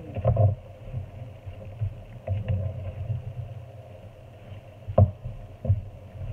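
A wooden spatula stirring chicken and vegetables in a sauce-filled nonstick frying pan: uneven sloshing and scraping, with a few sharp knocks of the spatula against the pan, the loudest about five seconds in and again just after.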